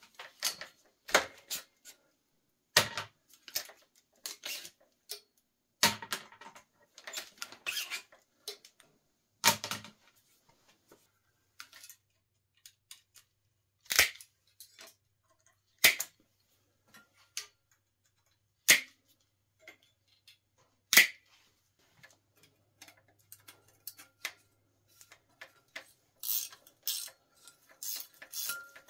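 Irregular sharp metal clicks and clanks from a 1974 Schwinn LeTour road bike being taken apart by hand: brake cables are pulled and handled and handlebar parts worked loose, then a wrench goes onto the front brake caliper, with a quick run of clicks near the end.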